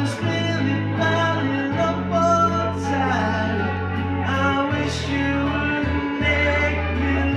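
Karaoke singing: a man singing along to a recorded backing track with a steady bass line and guitar.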